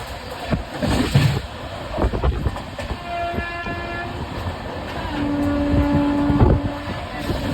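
Indian Railways LHB coach running at high speed, its wheels rumbling and knocking sharply over rail joints and points. A train horn sounds twice: a short higher blast about three seconds in, then a longer, lower one from about five seconds on.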